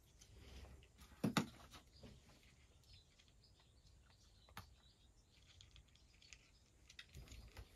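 A cat crunching dry kibble from a dish: faint crackling and small clicks, with a louder knock about a second in.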